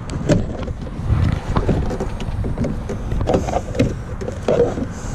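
Interior door panel of a pickup truck being pried and pulled loose: scattered, irregular clicks and knocks of plastic panel and clips, over a steady low rumble.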